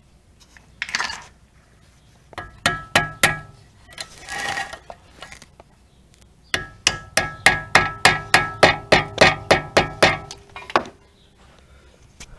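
Hammer blows on a metal part, each with a short metallic ring: a few blows, then a steady run of about sixteen at roughly four a second.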